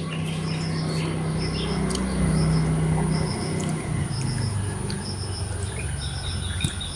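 Small birds chirping in short, high notes that repeat in little groups, with a fast run of high pulsed chirps from about four seconds in, over a steady low hum.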